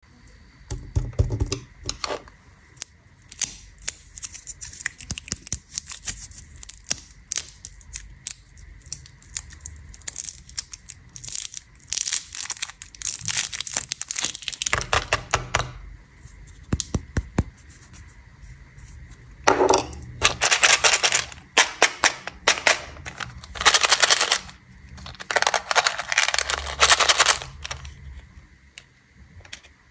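Plastic candy wrappers crinkling and tearing in repeated bursts, mixed with sharp clicks and taps, the bursts growing longer and louder in the last third.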